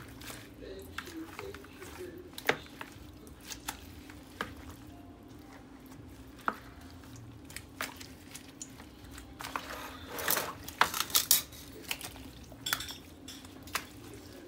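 Kitchen dishes and utensils clinking and knocking, with scattered sharp taps and a denser burst of clatter and scraping about ten seconds in, over a steady low hum.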